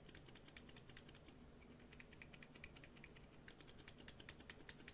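Faint, rapid keystrokes on a mechanical keyboard fitted with silent tactile switches, Gazzew Boba U4 and Akko Penguin, typed in quick runs of several clicks a second to compare how quiet they are.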